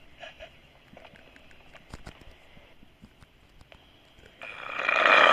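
A sleeping person snoring: about four seconds of quiet with faint breathing and small clicks, then a loud snore swells up near the end.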